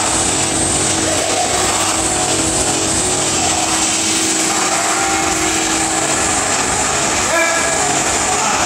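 Steady loud rushing noise with a low steady hum under it, and a brief voice about seven seconds in.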